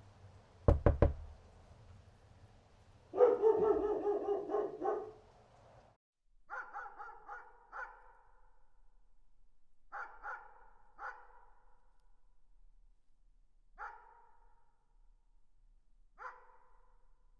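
Three quick knocks, then a dog barking rapidly and loudly for about two seconds. After that a dog barks more faintly in short groups of three, then single barks, each ringing out with a little echo.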